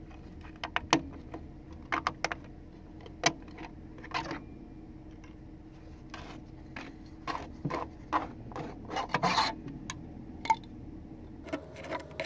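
Plastic parts of an anchor bolt setter, a red ABS slider and its blue base, being twisted and pulled off the top of a concrete foundation wall: a string of sharp clicks and taps, with a cluster of longer scrapes about two-thirds of the way through.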